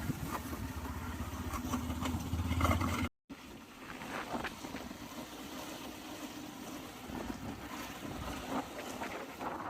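Bajaj Pulsar NS motorcycle's single-cylinder engine running while riding, with wind rushing over the microphone. The sound cuts out briefly about three seconds in, after which the engine is fainter under the wind.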